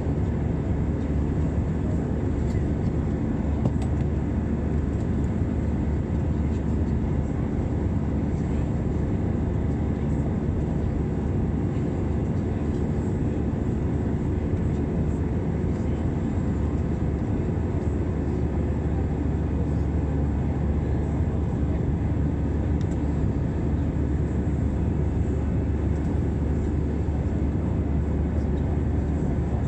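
Jet airliner cabin noise in flight: the engines and rushing air make a steady, even drone, heaviest in the low end.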